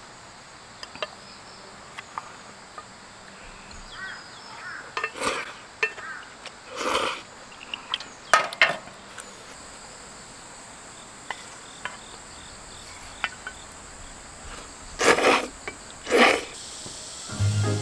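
Crickets chirping steadily in a high thin tone, with a few short, louder rustling or handling noises now and then.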